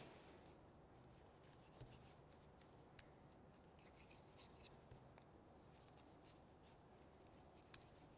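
Near silence with faint scraping and a few soft ticks: a boning knife working meat off beef rib bones.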